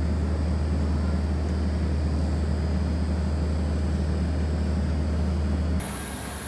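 Airport apron shuttle bus running, a loud steady low drone heard from inside the crowded cabin. About six seconds in it cuts off abruptly to a quieter scene with a thin, steady high whine.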